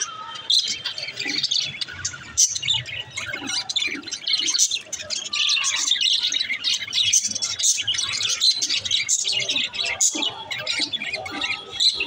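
A flock of budgerigars chattering: a constant mass of overlapping chirps and warbling.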